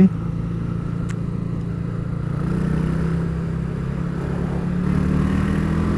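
Motorcycle engine running while riding at low road speed, its pitch rising a little about halfway through and again near the end as it speeds up.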